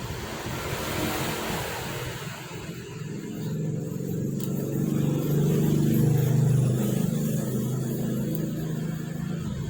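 A motor vehicle engine passing by, growing louder to a peak about six seconds in and then fading.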